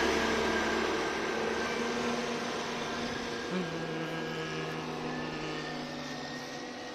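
Engine of a road construction machine running, with a steady hum of several tones over a noisy rush that fades gradually as the machine moves away.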